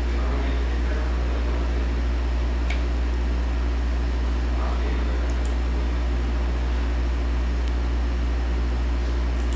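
Steady low hum with an even hiss of room noise, and a faint click about three seconds in.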